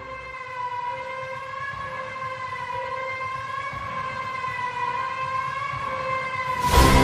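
Background music: a single held, slightly wavering note with its overtones, the bass and beat dropped out. The beat comes back in loudly near the end.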